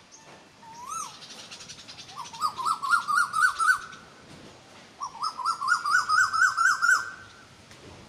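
Asian koel (koyal) calling: a single rising-and-falling note about a second in, then two fast runs of repeated rising notes, each lasting about two seconds.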